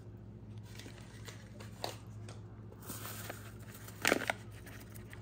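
Faint crinkling and clicks of a seasoning packet being handled and opened, with one louder rustle about four seconds in, over a steady low hum.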